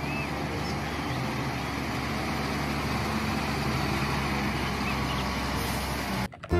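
Concrete mixer truck's diesel engine running steadily, a low hum under a steady rush of noise, cutting off abruptly near the end. Birds chirp briefly a few times.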